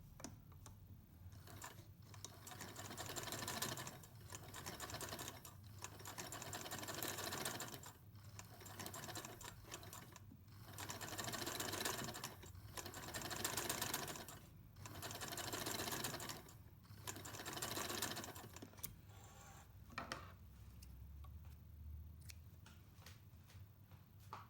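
Singer 99 sewing machine stitching in several short runs with brief pauses between them, then a few light clicks near the end.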